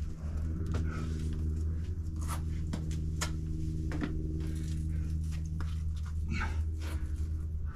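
A climber catching his breath after falling off a boulder problem, with a few light taps and scuffs, over a steady low hum.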